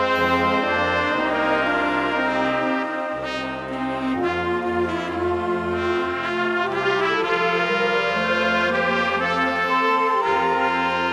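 School wind ensemble playing sustained chords, with brass, saxophones and flute over a low bass line that moves every second or so. A triangle rings briefly right at the start.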